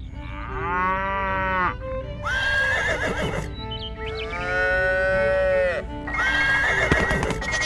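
Farm animal calls: four drawn-out cries of about a second each, alternating between two kinds of call, over background music.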